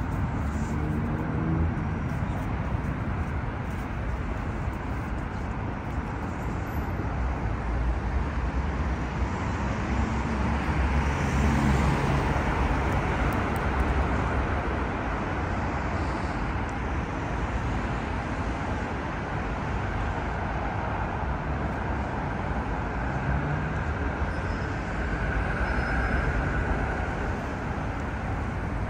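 Road traffic: cars running along a city road in a steady hum, with one passing by more loudly around the middle.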